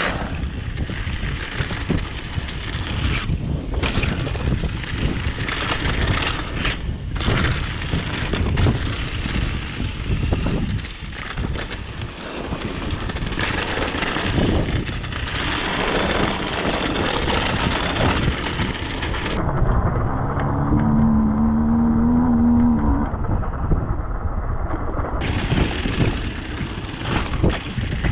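Mountain bike descending a dirt trail at speed: wind rushing over the camera microphone, tyres rumbling over the ground and the bike clattering. About twenty seconds in, a low hum sounds for a few seconds.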